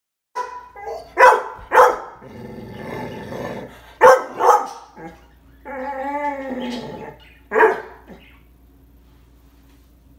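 Dog barking: sharp barks in pairs with a rough growl between them, then about six seconds in a wavering howl of about a second and a half, followed by one last bark.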